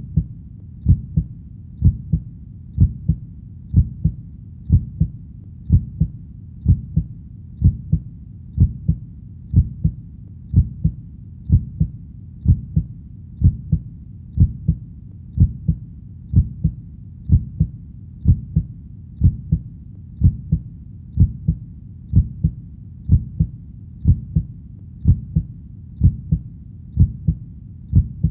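A steady heartbeat, each beat a low double thump (lub-dub), at about one beat a second over a faint low rumble.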